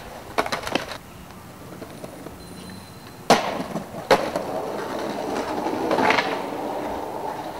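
Skateboard sounds: a few clattering knocks near the start as a skater and board hit the pavement, then a loud sharp snap of the board about three seconds in, a short scrape along a curb ledge, a second sharp clack on landing, and the wheels rolling on asphalt, rising and then holding steady.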